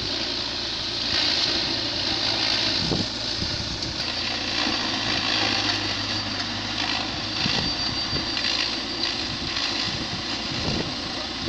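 Tractor-powered hammer mill running steadily as it grinds dry maize stalks into chaff, with the tractor engine's steady hum underneath.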